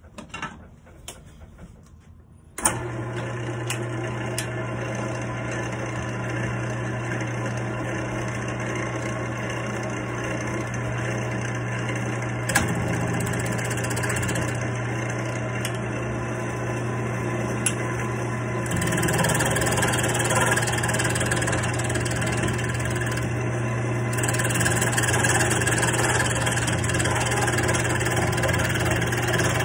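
Wood lathe switched on about two and a half seconds in, its motor then running with a steady hum. From about two-thirds of the way through, a hiss rides over the hum as a turning chisel cuts into the spinning wooden dowel.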